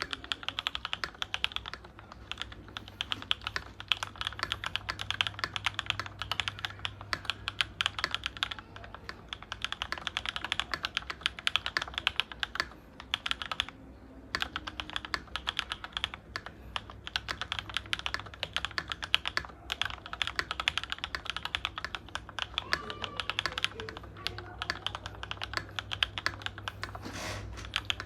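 Fast, continuous typing on a MonsGeek MG75 mechanical keyboard with SOTC switches and ABS doubleshot keycaps: rapid key clicks, with a short pause about halfway through.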